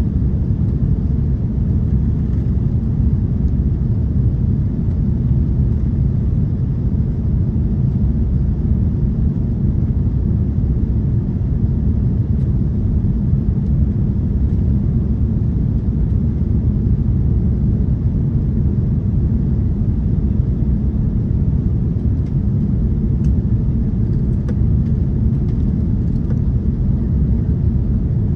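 Steady low rumble inside the cabin of an Airbus A330-343 airliner, even in level throughout, with a few faint ticks near the end.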